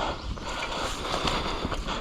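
Mountain bike riding fast down a wet dirt trail: tyres rolling on the ground, with the bike rattling and knocking over bumps.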